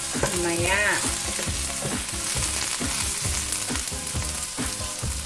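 Chopped onion, garlic and red bell pepper sizzling in a little oil in a hot stainless-steel Saladmaster skillet. A wooden spatula stirs them, scraping and tapping the pan bottom about twice a second.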